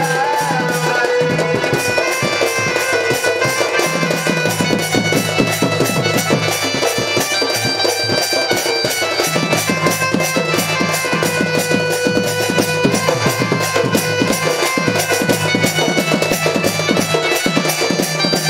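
Instrumental folk dance music: fast, even drumming under a reedy wind melody of long held notes, with no singing.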